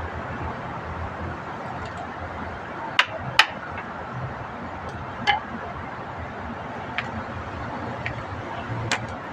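Hand tools clinking against metal parts: a few sharp separate clicks and taps, two close together about three seconds in and single ones after, over a steady background hum.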